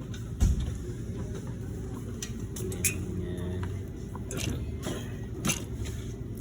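Gree VRF air-conditioning unit running with a steady low hum. Scattered clicks and knocks are heard over it, with one loud thump about half a second in.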